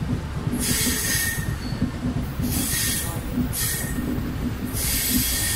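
Passenger train rolling slowly along a station platform, heard from inside the carriage: a steady low rumble of the wheels on the track, with a hissing screech from the wheels that comes and goes four times, about every second or so.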